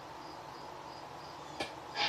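Faint steady hiss with a short high-pitched chirp repeating evenly about three times a second, and a single sharp click near the end.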